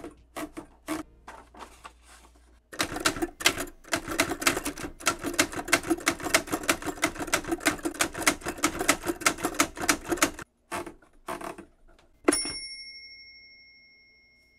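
Smith-Corona Super-Speed manual typewriter: a few clicks as the paper is fed in, then a fast, steady run of keystrokes for several seconds, and a couple more clicks. Near the end, a single sharp bell ding rings out and fades over about two seconds.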